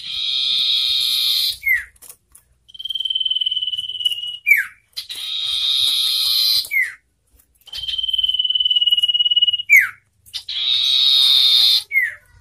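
Common ioras calling in turns: three harsh buzzing rasps, each ending in a quick falling note, alternate with two long steady high whistles that also end in a short pitch drop.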